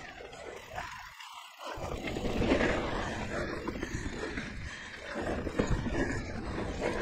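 Mountain bike riding on dirt singletrack heard through a chest-mounted action camera: wind rumble on the microphone with tyre and trail noise. The low rumble briefly drops out about a second in.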